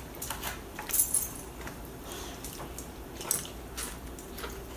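Light, scattered clinks and taps of cutlery against plates and food containers as a meal is served and eaten, with two sharper clinks about a second in and past the three-second mark.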